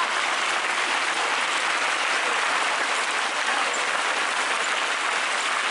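Spectators applauding steadily as a stream of mountain-bike riders passes.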